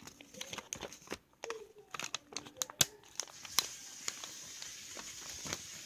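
A sheet of paper being folded and creased by hand, crinkling with scattered sharp crackles and taps.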